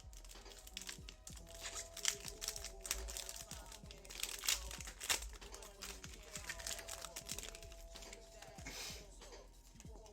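Foil trading-card pack wrappers being torn open and crinkled in the hands, an irregular run of crackling and ripping, with faint background music.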